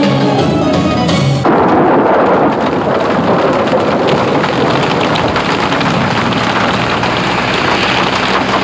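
Music cuts off about a second and a half in, and a steady heavy rain takes over, an even loud hiss of falling water.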